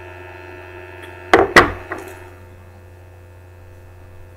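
A clear acrylic clay roller set down on a tabletop: two sharp knocks about a quarter second apart, then a faint tap. A steady faint hum continues underneath.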